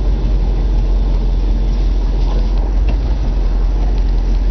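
1966 Ford Thunderbird's V8 engine running steadily with a low rumble, still cold and missing a bit.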